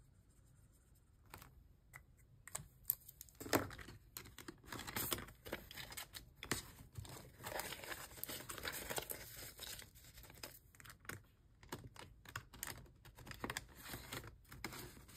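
Paper dollar bills handled and counted by hand: a run of crisp rustling and crinkling with many small clicks, starting about a second and a half in and growing busier a few seconds later.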